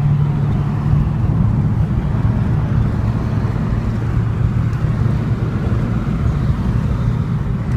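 Car engine and road noise: a steady low drone that drops slightly in pitch about a second in.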